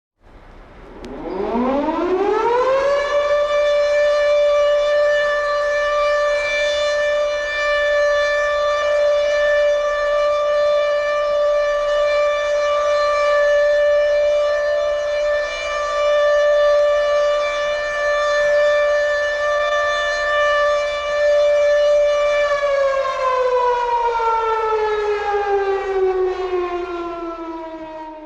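Air-raid siren winding up from silence to a steady high note over about three seconds, holding that one note, then winding down with falling pitch and fading near the end.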